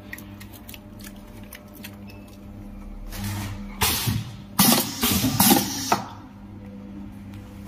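Sauce sachet filling machine running: a steady motor hum from the hopper's stirrer, then, from about three seconds in, three or four short loud bursts of air hiss and clatter as the pneumatic filling cylinders cycle.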